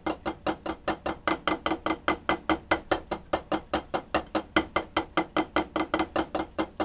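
Drumsticks playing a steady, even stream of single strokes on a practice pad, about five strikes a second, each stroke about as loud as the last.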